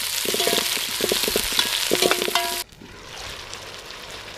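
Meat sizzling and frying in a black pot over a wood fire, with a metal ladle scraping and clinking against the pot as it is stirred. About two and a half seconds in the sizzle cuts off abruptly, leaving a quieter, steady hiss.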